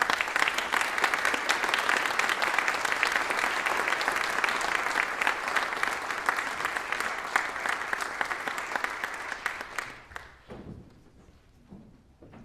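Audience applauding in a reverberant church, a dense patter of clapping that dies away about ten seconds in, leaving only faint rustles.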